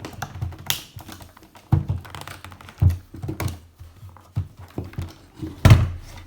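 Irregular clicks, taps and knocks of a plastic toy playset and its packaging being handled and pulled at while trying to free it from heavy-duty zip ties. There are a few louder knocks, the loudest near the end.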